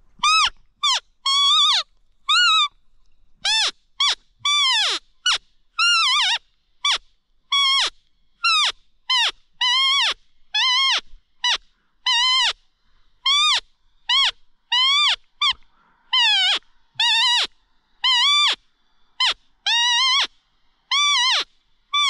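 Repeated animal calls: a clear pitched note that bends up slightly and then drops away, about twice a second.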